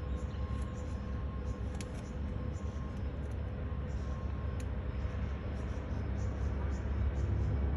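Jet airliner's engines on landing approach: a steady low rumble with a faint steady whine, growing a little louder toward the end.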